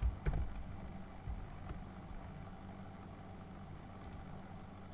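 A few computer keyboard clicks in the first two seconds, over a steady low hum.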